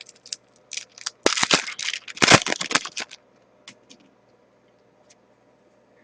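Hockey trading cards and their foil pack being handled: rustling and crinkling with sharp clicks for about three seconds, then only a few faint ticks.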